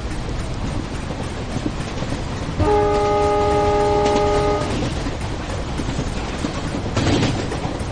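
A train running with a steady rumble; about two and a half seconds in, its horn sounds one steady blast of about two seconds. A brief louder rush follows near the end.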